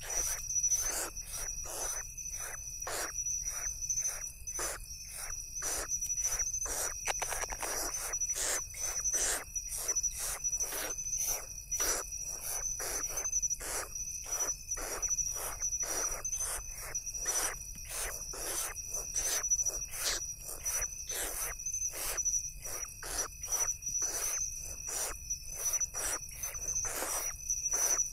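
A steady high-pitched insect trill runs continuously, overlaid by a rapid, somewhat irregular series of short hissing rasps, roughly two a second: owl chicks begging while being fed.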